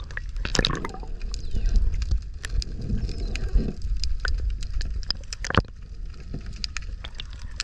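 Underwater sound picked up by a submerged camera: a steady low water noise with many scattered sharp clicks and crackles.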